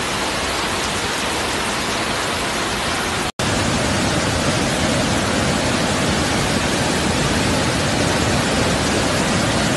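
Muddy floodwater rushing in a flash flood: a steady, loud rush of water. It cuts out for a moment about a third of the way in and comes back a little louder.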